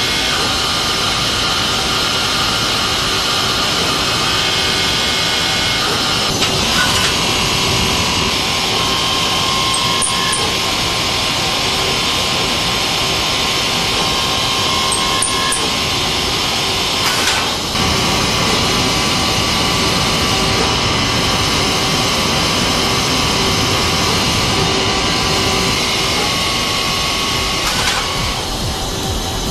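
Mazak Quick Turn Nexus 200-II MSY CNC turning centre machining a part: spindle and cutting tool running steadily, with a faint steady tone over the noise. The sound shifts abruptly about six and a half, seventeen and a half and twenty-eight seconds in, as the machine moves between operations.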